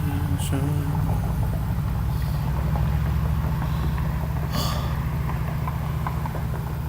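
A steady low rumble of an engine running, with a brief hiss about four and a half seconds in.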